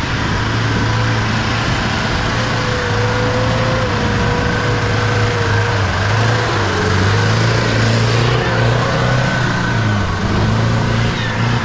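Modified Toyota Land Cruiser's engine running loud and steady under power, with a whine above it; the engine pitch begins to shift near the end.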